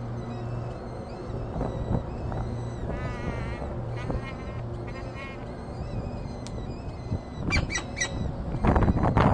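Downy raptor chicks calling with harsh, begging calls: a rapid series about three seconds in and louder calls near the end, which signal hunger at feeding time. Near the end a loud low rumble comes in.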